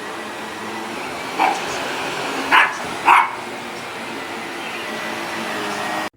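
Shark Navigator Lift-Away NV356E upright vacuum running steadily while a dog barks three times at it, about a second and a half, two and a half and three seconds in. The vacuum sound stops suddenly just before the end.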